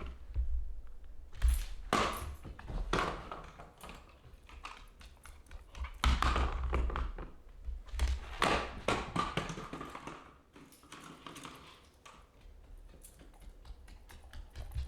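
Irregular knocks, taps and low thuds mixed with short stretches of scraping and rustling, as objects are handled and set down; it quietens after about ten seconds.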